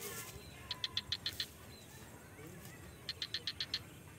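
Faint high-pitched chirping from a small animal: two quick runs of about six short chirps each, one about a second in and one near the end.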